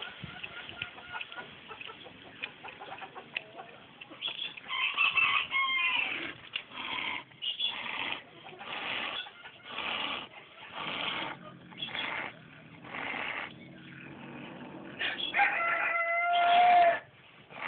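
A leopard cat hissing over and over, about once a second, with a low growl under the later hisses. A rooster crows near the end.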